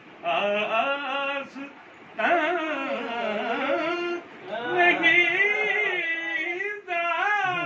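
A man singing a naat in classical style: long held phrases with wavering, ornamented pitch, broken by short breath pauses three times.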